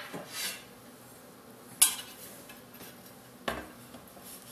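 Kitchen utensils clattering: a few short, sharp knocks, the loudest a little after one and a half seconds in and another about three and a half seconds in, as a carving knife and a cutting board are handled and set down on a countertop.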